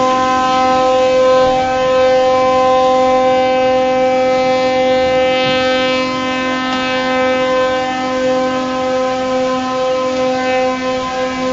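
Ship's horn sounding one long, steady, unbroken blast as a tanker is launched down the slipway, over the rush of water churned up by the hull.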